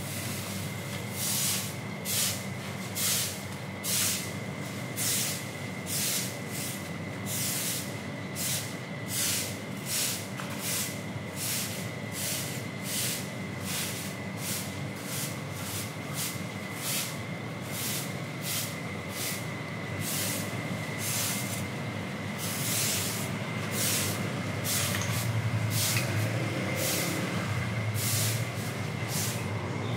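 Broom sweeping a wet floor: repeated short swishing strokes, about one or two a second. A steady high whine and a low hum run underneath, and a low rumble swells near the end.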